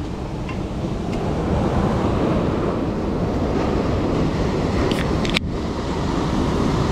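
Ocean surf washing up the beach, with wind buffeting the microphone. A couple of brief sharp clicks about five seconds in come from the pull tab of an aluminium drink can being opened.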